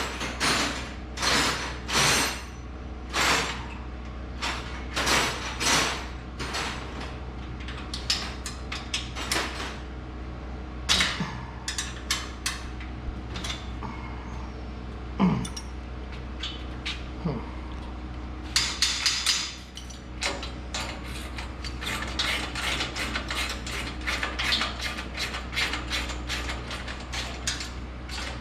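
Hand tools working on steel race-car parts: irregular metallic clanks and scrapes as bolts are worked on, then a quicker run of clicks in the second half like a ratchet wrench turning a bolt. A steady low hum runs underneath.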